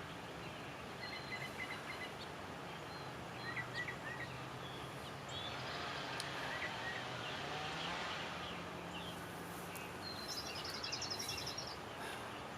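Outdoor ambience: small birds chirping now and then, with a rapid trill near the end, over a steady low hum.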